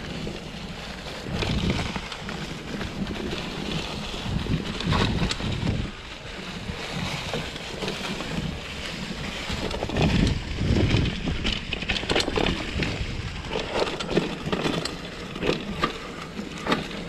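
2021 Gravity FSX Comp mountain bike rolling along a trail covered in dry fallen leaves: tyres rustling through the leaves, with frequent clicks and knocks from the bike over bumps and roots. Gusty wind rumble on the microphone.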